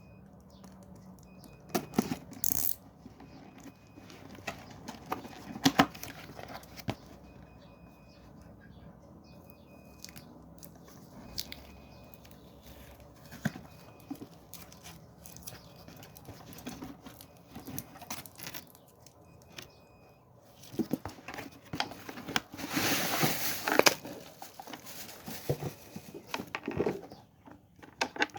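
Unboxing handling noise: scattered clicks and knocks of packaging and a speaker being handled, with a stretch of rustling and tearing of wrapping about 21 to 24 seconds in. Faint short high beeps repeat at intervals through the first half.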